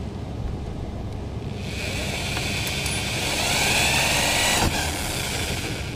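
Corded electric drill boring a bolt hole into a Nissan 350Z's trunk lid. The motor whine starts about a second and a half in, rises in pitch as the bit bites, and cuts off suddenly near the end.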